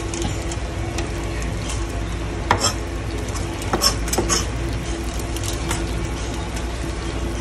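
Pot of soup simmering on a stovetop over a steady low hum, with a few sharp clinks about two and a half seconds in and again around four seconds in.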